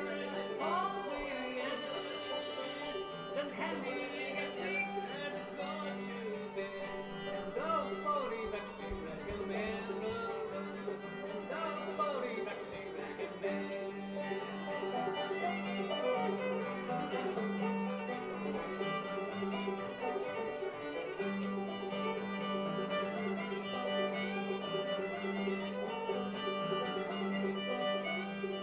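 Old-time string band playing live, a fiddle carrying a wavering tune over a steady low note held underneath.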